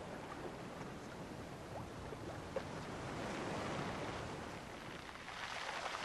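Sea water washing and lapping, with paddle strokes in the water from a two-man kayak being paddled; the wash swells a little louder about halfway through.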